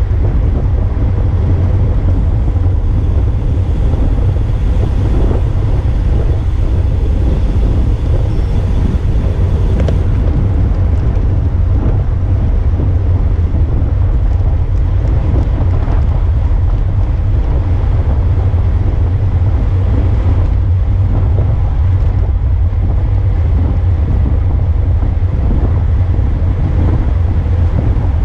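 Wind buffeting the microphone of a road bike's handlebar camera while riding at race speed in a pack: a loud, steady low rumble.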